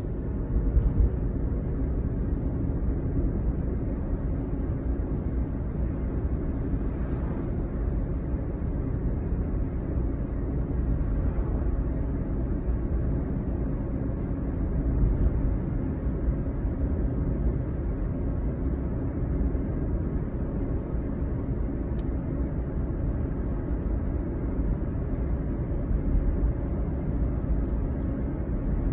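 Road vehicle driving steadily along a paved road, a constant low rumble of engine and tyre noise.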